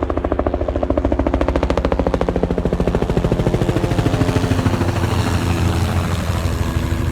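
An engine running close by with a fast, even putter; its pitch shifts a little partway through.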